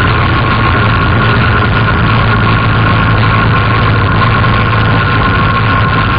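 Quad (ATV) engine running at steady revs, heard close up from on board: a constant drone with a steady whine on top, without any revving up or down.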